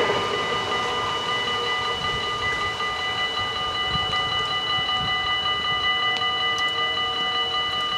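Dutch level-crossing bells ringing steadily, still sounding while the half barriers lift after the train has cleared. The last of the passing train's rumble fades out in the first moment.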